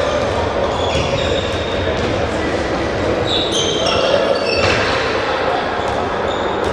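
Athletic shoes squeaking on an indoor sports floor amid handballs being bounced and caught, echoing in a large sports hall.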